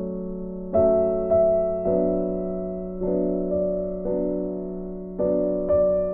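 Background piano music: slow chords struck every second or so, each left to fade.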